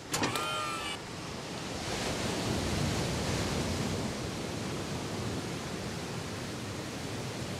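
Surf washing up a beach: a steady rushing hiss that swells about two seconds in and holds. A brief high cry with a few rising-then-level tones sounds right at the start.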